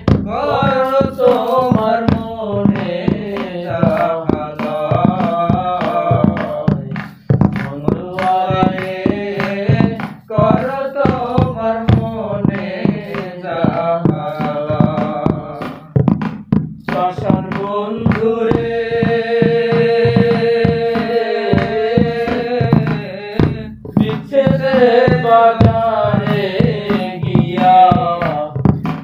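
Men singing a Bengali folk song in a slow, wavering melody over regular hand-drum strokes. There are short breaks between phrases, and one long held note about two-thirds of the way through.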